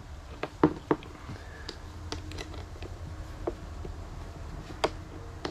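Sharp metallic clicks and light scraping, about seven in all and spaced irregularly, as the clamps of a Noco Boost Plus jump starter are fastened and wiggled on the ATV's battery cable terminals to get a good connection.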